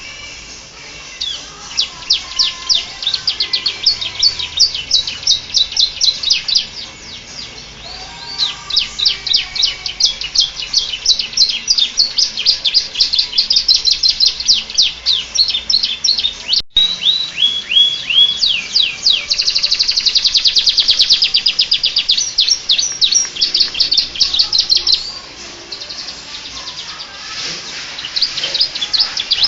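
Domestic canary singing long phrases of rapid, high-pitched trills, its song filled in with phrases learned from the bar-winged prinia (ciblek). The song breaks off for short pauses a few times and cuts out for an instant after about 17 seconds.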